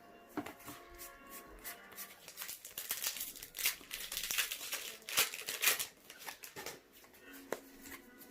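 Crinkling and tearing of a foil Pokémon booster-pack wrapper, in a run of rustles that is loudest from the middle of the stretch to near the end.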